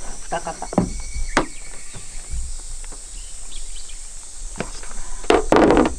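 A plastic storage container of pork-rind trailers is opened and handled: a few sharp clicks and knocks, then a louder rustling clatter near the end. Insects buzz steadily in the background.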